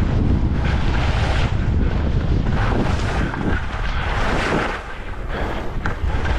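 Wind buffeting the camera microphone at skiing speed, with the hiss of skis sliding and carving over snow swelling and fading through the turns. The rush eases briefly about five seconds in.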